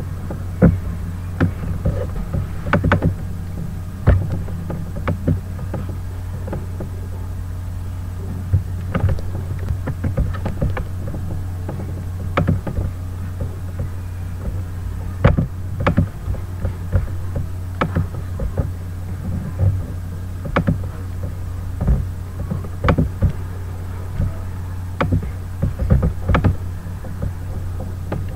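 Irregular sharp clicks, several at a time with gaps between them, from a computer mouse being clicked, over a steady low hum.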